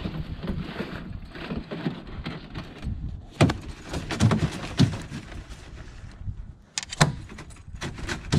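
Knocks and clatter of a landing net and gear against a canoe while a just-landed pike is handled: several sharp thuds a second or more apart, the loudest about three and a half seconds in and again about seven seconds in, over a steady background hiss.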